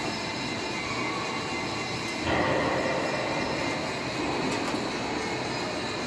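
TR80 floor deck roll forming machine running, steel sheet rumbling steadily through its forming rollers. About two seconds in it gets louder for a second or so, with a high metallic squeal.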